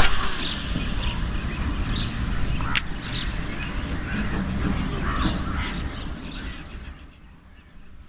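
Birds calling over a steady low rumble, with a sharp click about three seconds in; it all grows quieter near the end.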